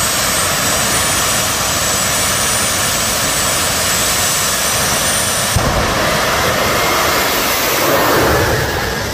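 Jet dragsters' turbine engines giving a loud, steady high-pitched whine, then a sudden deeper blast about five and a half seconds in as the cars launch, and a falling pitch near the end as they run down the track.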